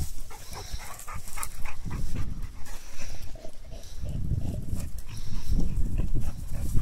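Dog panting while running and playing in grass, over a low rumble on the microphone.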